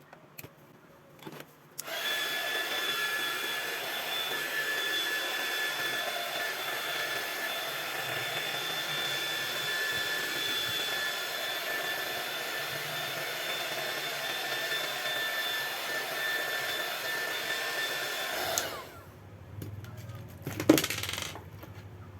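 Hot-air blower running steadily with a faint whine, starting about two seconds in and cut off suddenly about three-quarters of the way through. A few light clicks follow, with one sharp click near the end.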